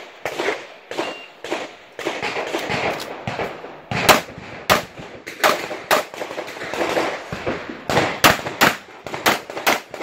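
Pistol shots fired in quick succession during an IPSC stage run, many in close pairs, loudest from about four seconds in. A short high shot-timer beep sounds about a second in.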